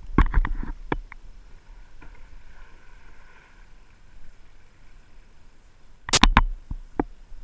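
Knocks and splashes of a kayak being paddled. There is a cluster of sharp knocks at the start and a louder one about six seconds in, with quiet water in between.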